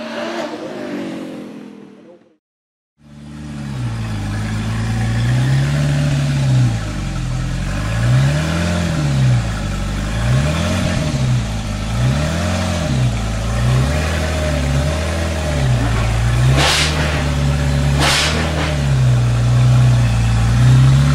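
Zenvo TSR-S's twin-supercharged V8 accelerating away and fading. After a brief silence it idles while stationary, with a string of short throttle blips that rise and fall in pitch and two sharp cracks near the end.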